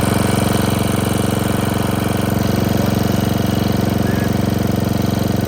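Snapper riding lawn mower's swapped-in 12.5-horsepower engine running steadily at raised throttle.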